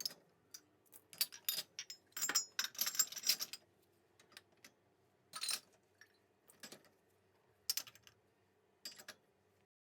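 Dishes and glasses clinking and knocking as they are set into a dishwasher's racks: a quick run of clinks for the first few seconds, then single clinks about a second apart.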